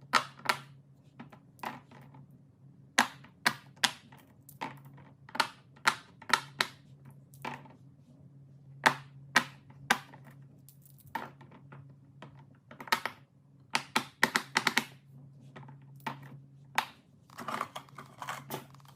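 Irregular sharp clicks and snaps from fidget toys being popped and handled, some in quick runs, over a faint steady low hum.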